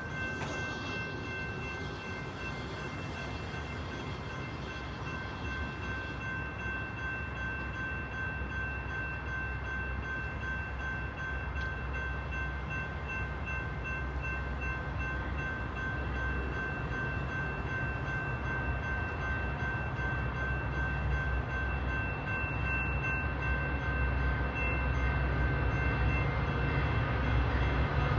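A pair of Metra F40PH-3 diesel-electric locomotives approaching at the head of a commuter train: a low engine rumble that grows steadily louder as the train nears. Thin, steady high-pitched tones sound throughout.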